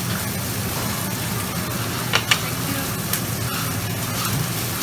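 Meat and vegetables sizzling on a large steel flat-top Mongolian barbecue griddle, with sharp clacks of metal spatulas on the steel a little over two seconds in and again about a second later.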